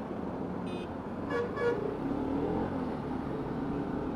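Motorcycle ride heard through a helmet-mounted action-camera mic: a steady engine and road hum, with two short horn toots about a second and a half in.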